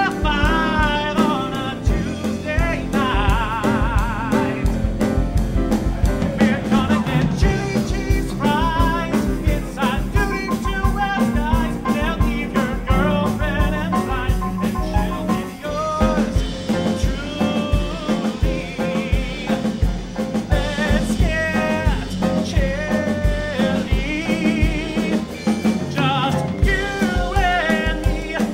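Live band playing an upbeat show tune with a steady drum-kit beat, with singing over it.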